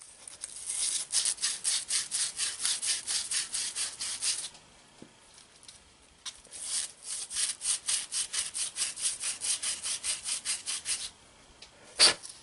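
Fast back-and-forth rubbing of a small starter part with a strip of abrasive cloth, about five scratchy strokes a second, in two runs of several seconds. A single sharp knock near the end.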